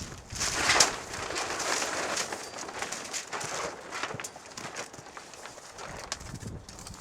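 Polyethylene shed-cover fabric rustling and crinkling as it is pulled and shifted over the metal pole frame. The handling is busiest in the first couple of seconds and settles into lighter rustles after about four seconds.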